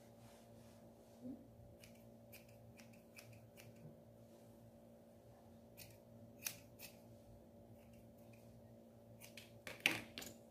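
Scissors snipping a small dog's fur: scattered faint, sharp snips with pauses between them, a louder cluster of snips near the end, over a faint steady hum.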